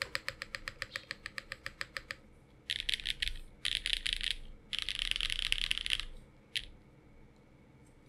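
Mechanical keyboard keystrokes on a Frog TKL with lubed Creampaca switches (Cream stems in JWK housings) and GMK ABS keycaps on an aluminium plate. An even run of single key presses goes at about ten a second for two seconds, then three dense bursts of very fast key presses, then one last keystroke.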